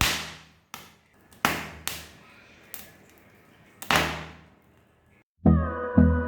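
Several sharp snapping cracks, about six in four seconds, typical of corn ears being snapped off the stalk by hand. Music with a steady beat begins about five seconds in.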